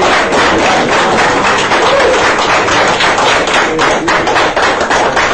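A group of people clapping together in a fast, even rhythm.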